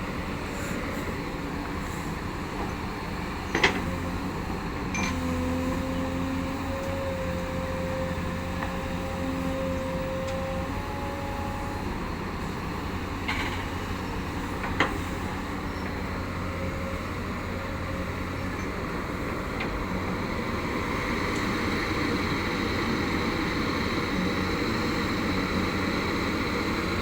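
Backhoe diesel engine running steadily under load while it digs and loads soil, with a thin whine over it for several seconds that steps up in pitch. Two sharp knocks, one about three and a half seconds in and another about fifteen seconds in.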